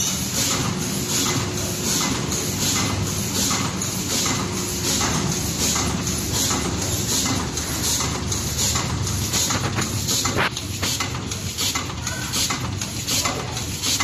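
Automatic gyoza-making machine running, its pneumatic forming moulds and conveyors cycling in a steady rhythmic clatter and hiss of about two and a half beats a second.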